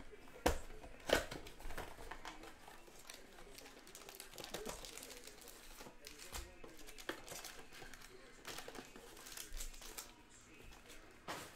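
Trading-card pack wrappers being torn open and crinkled, a run of sharp crackles, the loudest two about half a second and a second in.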